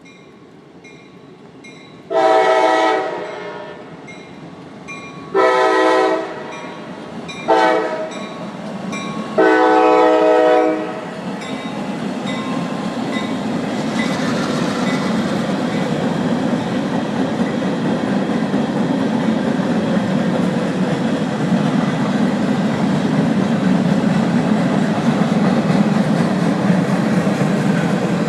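Diesel locomotive's multi-tone air horn sounding the grade-crossing signal: two long blasts, a short one, then a long one. After that the train passes, a steady rumble of locomotive engines and steel wheels on rail that grows louder.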